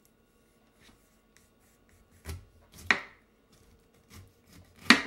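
Sharp kitchen knife cutting through a pineapple on a bamboo cutting board: a few short crunches and knocks of the blade, the loudest about three seconds in and just before the end.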